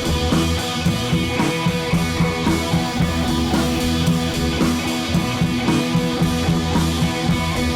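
Background music: a guitar track with drums keeping a steady beat.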